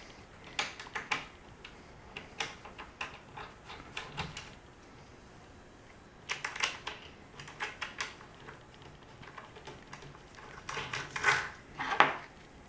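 Irregular clusters of small metallic clicks and taps as a washer and nut are handled and threaded onto a bolt by hand.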